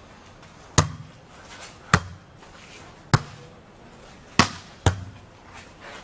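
A volleyball being hit back and forth by hand: five sharp smacks about a second apart, the last two close together.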